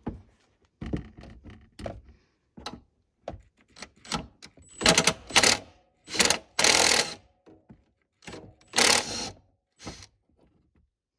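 Cordless brushless grinder run in short, irregular bursts against freshly welded steel, with a longer pass around the middle and another near the end.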